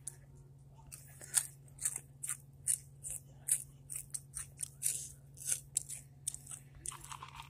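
Hot chips being chewed close to the microphone: a quick, irregular string of crisp crunches, about three a second.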